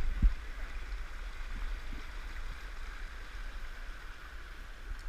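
Mountain stream rushing steadily over rocks, with a couple of low thumps right at the start.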